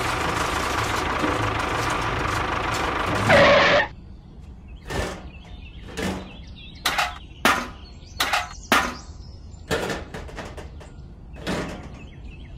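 A small motor runs steadily with a constant whine, swells briefly and then cuts off suddenly about four seconds in. It is followed by a string of about ten sharp knocks at irregular intervals.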